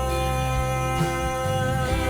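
Instrumental music with no singing: held chords over a bass line, with a soft low beat about once a second.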